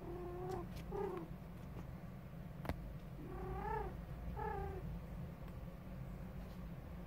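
Female cat in heat calling: four short, low yowls in two pairs, each rising and then falling in pitch. A single sharp click falls between the pairs.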